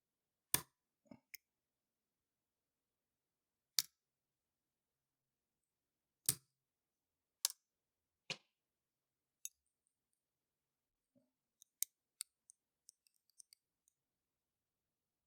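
Sharp metallic clicks of lock picks and a tension tool working in the keyway of an old registered US mail padlock. There are several loud single clicks a second or more apart, then a quick run of smaller ticks near the end.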